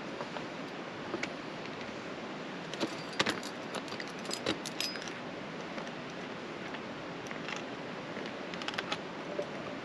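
Metal climbing hardware clinking and scraping against rock during a mixed climb: a run of sharp clicks and taps in the middle and a shorter cluster near the end, over a steady background hiss.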